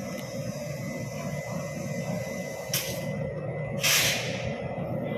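Passenger train pulling out of a station, a steady low rumble, with two short hisses partway through, the second louder and longer.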